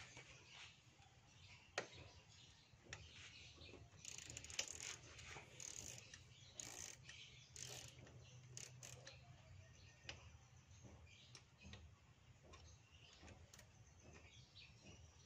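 Faint metallic clicks and scrapes of hand wrenches working the bolts on a motorcycle's rear brake caliper to get at the worn pads, busiest in the middle.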